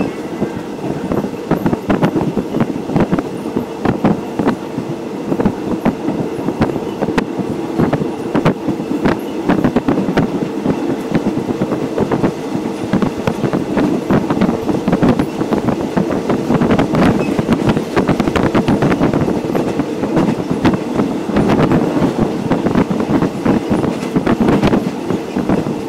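Passenger train running along the track, heard from inside the carriage: a steady rumble of wheels on rails with continual rattling and frequent sharp clicks and clacks.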